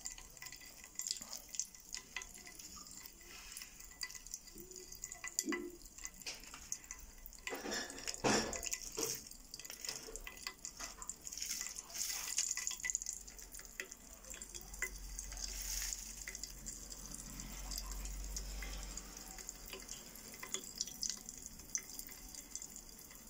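Popping candy crackling and fizzing inside a glass bottle of soda, a dense patter of tiny pops throughout. More candy is poured in from its sachet partway through.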